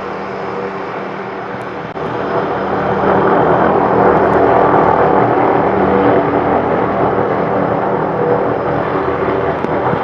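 MD 500 helicopter hovering at a distance: a steady rotor and turbine drone, which grows louder about two seconds in and then holds steady.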